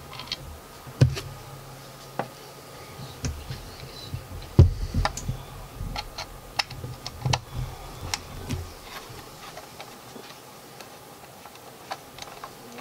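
Sharp clicks and taps of a screwdriver and hands working the screws on the underside of a Remington 700 rifle's wooden stock, with a few dull thumps as the rifle is handled; the loudest thump comes about four and a half seconds in.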